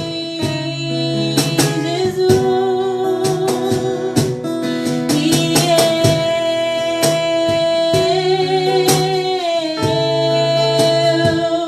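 Worship song: acoustic guitar strummed in a steady rhythm under singing voices holding long, slightly wavering notes.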